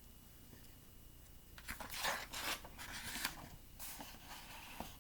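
A paper page of a picture book being turned and handled: a few seconds of soft rustling and scraping, starting about a second and a half in, with a shorter rustle near the end.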